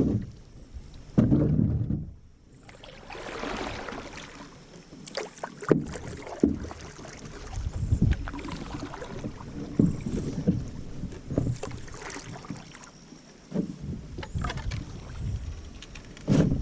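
Canoe paddle strokes in the water: a splash and a knock of the paddle roughly every two seconds, over a background of moving water.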